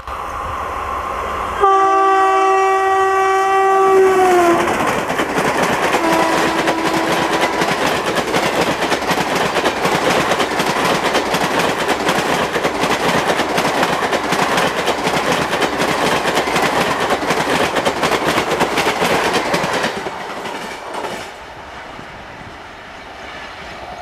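WAP4 electric locomotive's horn sounds for about three seconds, its pitch dropping as the engine passes, then gives a short, lower second blast. The coaches of the express then rush past at about 110 km/h with rapid wheel clatter over rail joints and points, which stops suddenly near the end as the last coach goes by, leaving a fainter receding rumble.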